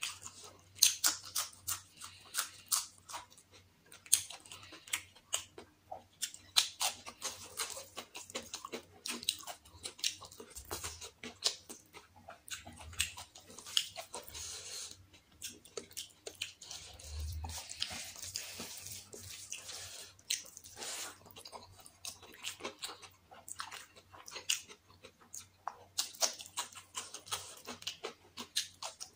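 Close-miked chewing of chicken biryani eaten by hand: wet mouth sounds with many quick, irregular sharp clicks.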